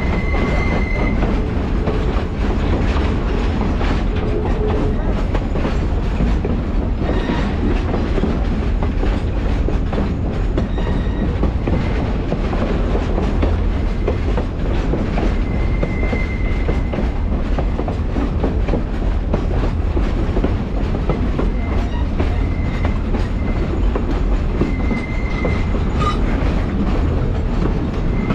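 Passenger train cars rolling along the rails with a steady rumble and clatter of wheels on track. A few times a short, high wheel squeal rises over it as the train takes the curves.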